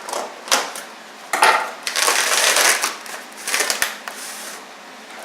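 Crinkling and rustling in several irregular bursts, the longest lasting nearly a second about two seconds in.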